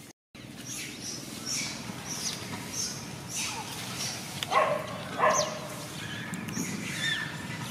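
Animal calls: short high chirps repeating throughout, with two louder, sharp calls about four and a half and five seconds in, after a brief dropout at the very start.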